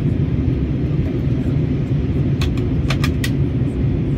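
Steady low rumble of airliner cabin noise from the jet engines and airflow, heard inside the cabin. A short run of four small clicks comes about two and a half seconds in.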